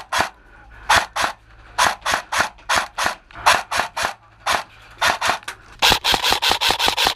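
Airsoft electric gun firing a steady string of quick shots, each a short rasping crack, about two to three a second; about six seconds in they come faster, in a rapid run.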